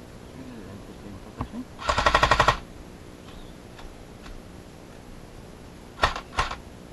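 Airsoft gun firing: a short full-auto burst of about ten rapid shots about two seconds in, then two single shots half a second apart near the end.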